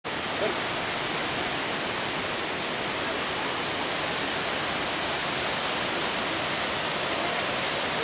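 Steady rushing of a waterfall, an even, unbroken wash of falling water.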